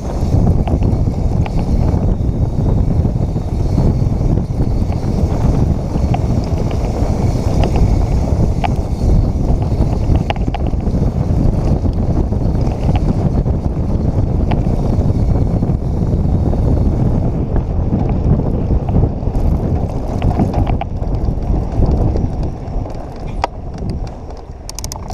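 Wind rumble on an action camera's microphone and tyre noise from a Santa Cruz Hightower V2 full-suspension mountain bike riding a rough dirt trail, with short clicks and rattles from the bike scattered through it. The noise eases over the last few seconds as the bike slows.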